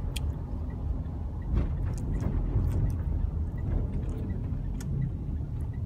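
Steady low rumble of a car heard from inside the cabin, with a few faint ticks.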